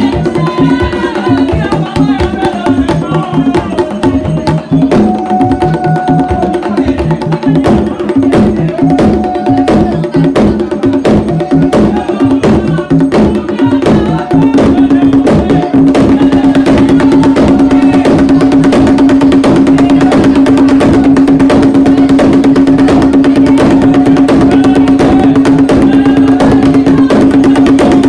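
Haitian Vodou ceremonial drumming: drums in an interlocking pattern under sharp clicking strikes, with voices singing over them. About halfway through, the drumming turns into a fast, unbroken beat held on one pitch and the singing drops back.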